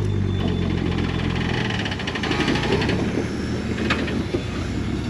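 Rock buggy's engine running at low revs close by as it crawls over rocks, a steady hum that turns rougher about two seconds in. A fine rapid rattle follows, then a single sharp tick near four seconds in.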